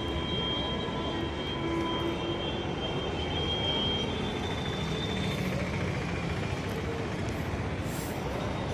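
Train in motion: a steady running rumble and rush of noise, with a faint high whine held over it.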